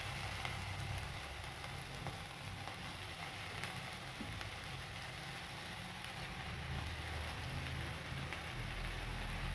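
Chopped cabbage, onion and potato frying in a little hot oil in a kadai: a steady, soft sizzle with a few faint ticks, over a low steady hum.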